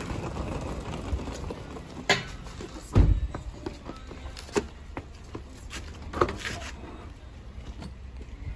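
Hard-shell suitcases being handled and loaded into a car boot: a few knocks and clicks, with one heavy thump about three seconds in.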